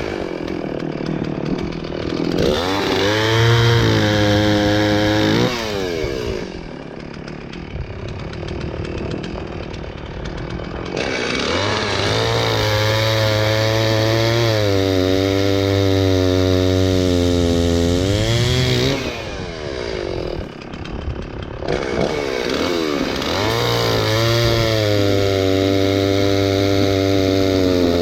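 Stihl two-stroke chainsaw cutting through a maple log: it revs up to full throttle three times, the pitch sagging and wavering as the chain bites, and drops back toward idle between cuts.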